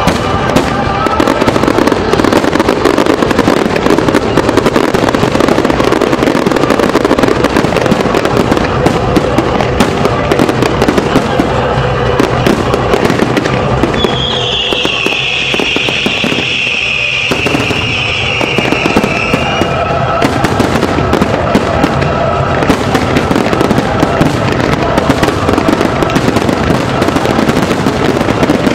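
A rapid, dense barrage of aerial fireworks bursting, crack after crack over music. About halfway through a high-pitched hiss sounds over the bangs for several seconds.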